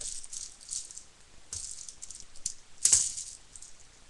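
Plastic clicking and rattling from a toy pump-action BB gun being handled. There is a sharp click about a second and a half in and a louder snap about three seconds in.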